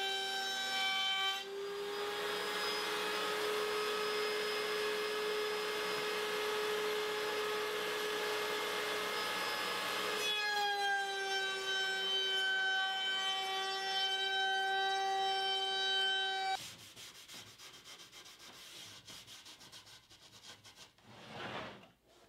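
Router spinning at high speed in a router table, a steady high whine with a rasping cut added for about eight seconds as it chamfers the edge of a maple board, then running free. It stops abruptly, and a rag rubs oil onto the board's edge.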